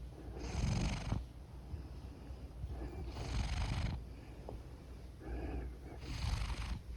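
A big domestic cat snoring in its sleep: three long, breathy snores about three seconds apart, over a steady low rumble of purring.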